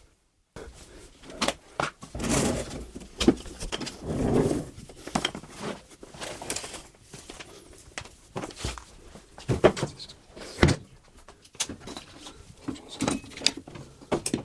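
Workshop handling sounds: irregular knocks, clicks and scrapes, with a few sharper thumps, as a vacuum and its hose are shifted and fitted into an MDF cabinet.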